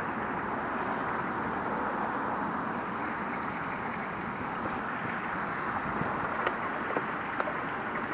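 Water rushing steadily through a lagoon drain, an even hiss. A few faint clicks near the end.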